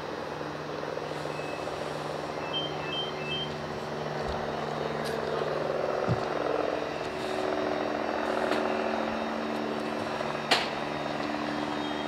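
Steady low mechanical hum, with three short high beeps about two and a half seconds in and a single sharp click near the end.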